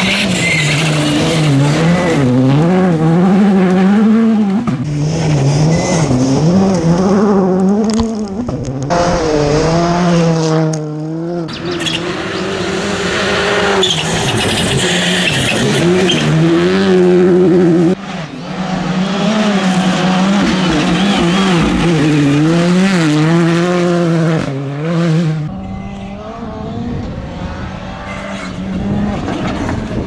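Rally2 rally cars' turbocharged four-cylinder engines at full stage pace on gravel, the engine note rising and falling quickly through gear shifts and lifts, with gravel and tyre noise. The sound breaks off abruptly about 18 seconds in as another car takes over, and it is quieter in the last few seconds.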